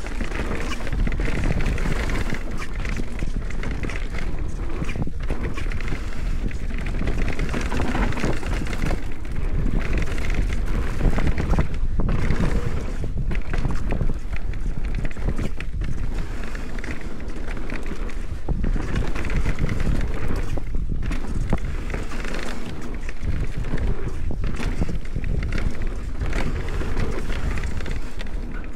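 Mountain bike riding a rough downhill dirt trail: wind rushing over the microphone and tyres rumbling on the ground make a steady, loud noise with brief dips.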